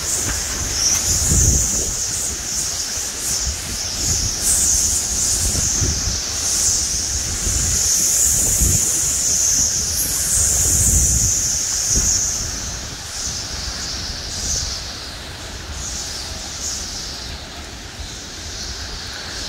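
Hurricane wind gusting with rain, a high hiss over a low rumble of wind buffeting the microphone. The gusts rise and ease in waves and die down somewhat over the last several seconds.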